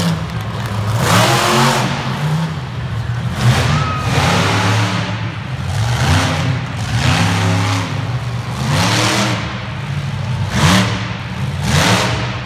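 Monster truck engine revving hard in repeated bursts, its pitch sweeping up and down every second or two as the driver works the throttle through spins and a wheelie.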